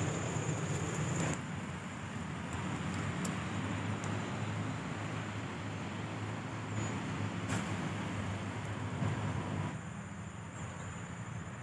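Steady background hum of distant road traffic. A thin, high, steady insect buzz runs for the first second or so.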